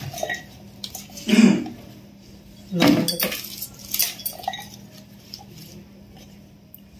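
Chopped raw mango pieces scooped with a steel tumbler and tipped into a plastic tub: two loud clattering dumps, about a second and a half in and again at three seconds, with lighter clinks of the tumbler after.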